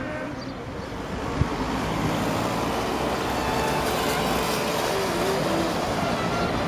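Street traffic noise from cars and a small motorcycle passing, a steady rush that grows a little louder about two seconds in.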